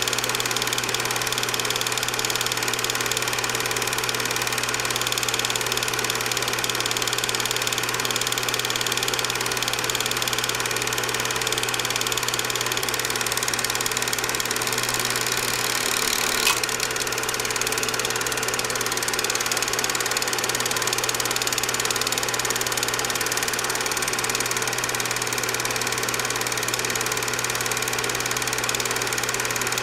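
Cine film projector running with a steady mechanical whirr and hum, and one brief click about sixteen seconds in.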